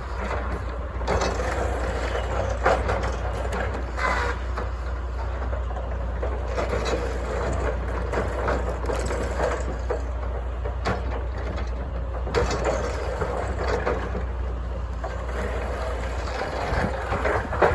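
Stroke-boom delimber working: its engine runs steadily under a continuous clatter, with sharp knocks and cracks every few seconds as logs are stripped of their limbs.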